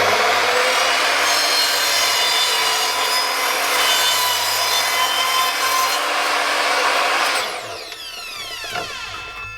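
An electric power tool starts abruptly and works on material for about seven and a half seconds. It is then switched off, and the motor winds down with a falling whine.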